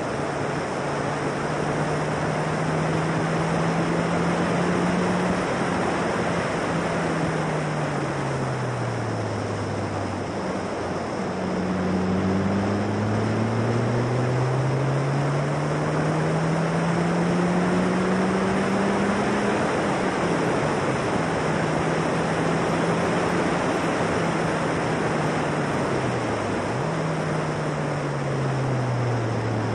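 Onboard sound of a Formula Silverstone single-seater's 1.6-litre Ford Duratec four-cylinder engine under heavy wind rush: the revs fall as the car slows about a third of the way in, climb steadily for several seconds under acceleration, step at a gear change, hold, then fall again near the end.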